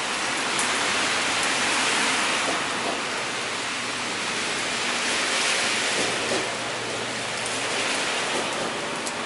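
Steady hiss of falling rain, with water running and dripping from a drainpipe.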